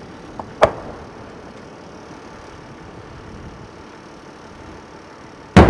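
Fireworks display: a sharp report about half a second in, then a steady rush of wind noise, and near the end a large aerial shell bursting with a loud bang that echoes on.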